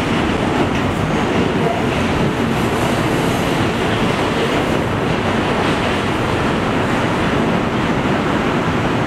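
Steady wheel and track noise inside a Pullman Standard R46 subway car running along the line.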